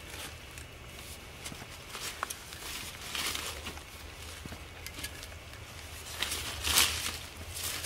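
Spade cutting and scraping into soil, a few noisy strokes with crunching of earth and roots, the strongest about three seconds in and again near the end.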